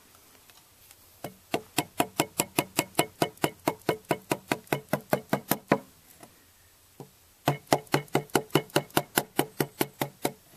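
Framing chisel being struck in quick, even blows, about four or five a second, chopping out a mortise in a softwood timber sill beam. Two runs of knocks, the first from about a second in to past halfway, the second starting about seven seconds in, each blow with a short ringing note.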